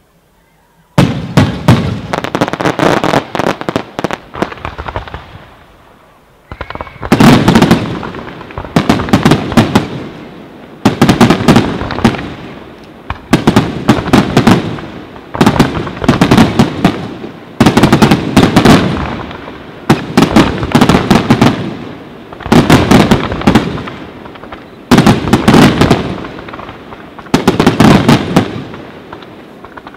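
Aerial fireworks display: after a brief quiet moment, loud volleys of rapid bangs and crackles. From about seven seconds in, they come as a regular series of dense barrages about every two seconds, each a fast string of reports that trails off.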